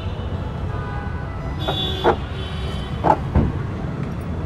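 Steady low background rumble with a few sharp knocks, the loudest about three seconds in, and a brief high tone just before the first knock.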